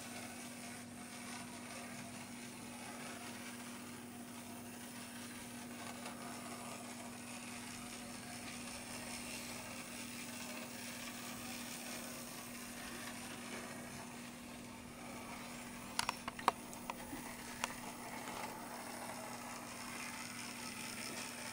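Tiny 3D-printed OO9 gauge model locomotive running round the track, its small electric motor and running gear giving a steady hum and whir. A few sharp clicks come about sixteen to eighteen seconds in.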